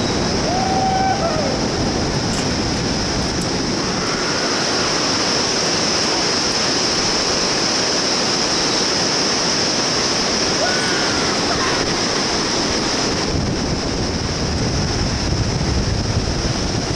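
Steady rush of the Bhote Kosi's whitewater rapids far below, mixed with wind. A steady high hiss over it cuts off about thirteen seconds in.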